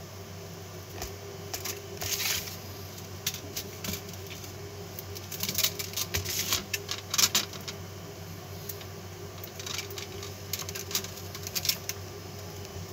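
Enamelled copper magnet wire being pulled through and wrapped around a toroidal transformer core by hand while rewinding its primary winding. The wire rustles, scrapes and clicks against the coil in irregular clusters, over a steady low hum.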